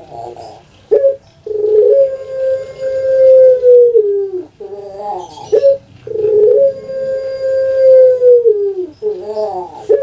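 Puter pelung, a Barbary dove (Streptopelia risoria), cooing its long call: short opening notes, then a drawn-out coo held about two and a half seconds that drops in pitch at the end, given twice.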